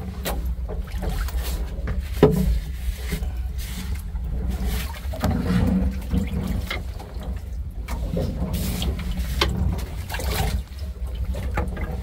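Water sloshing and splashing in a fishing boat's live-well tank as a large jack mackerel is put in among the fish, with many short wet splashes and clicks over a low, steady rumble.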